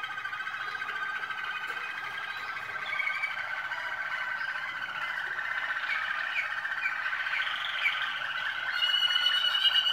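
Malinois Waterslager canary song: a continuous low rolling, bubbling trill with quick higher runs over it, and a clear higher note joining about nine seconds in.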